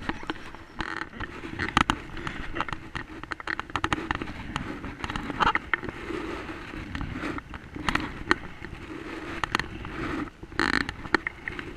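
Double-bladed paddle stroking an inflatable kayak through the water: irregular splashes and drips with sharp crackling knocks close to the microphone, and a longer splash near the end.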